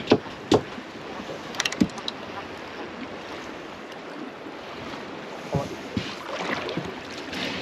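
Sharp knocks and a brief quick rattle on a small fishing boat, over a steady hiss of wind and water. The loudest knocks come in the first two seconds, with a couple more near the end.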